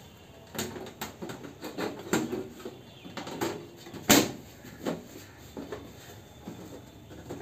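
Side panel of a desktop PC tower case being put back on and pushed into place: a series of scrapes and knocks, the loudest a sharp clack about four seconds in.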